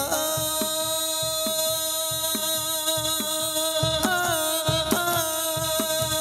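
A woman singing Then, holding one long note for about four seconds before it starts to waver, accompanied by plucked strokes on a đàn tính, the long-necked gourd lute of Tày Then singing.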